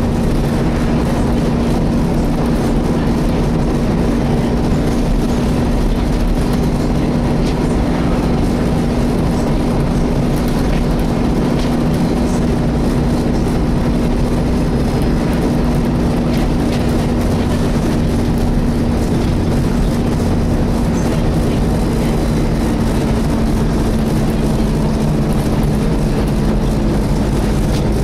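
Volvo B7TL double-decker bus's engine cooling fan droning a steady hum over engine and road noise while the bus is under way, heard inside the cabin. The hum holds one pitch and dips slightly near the end.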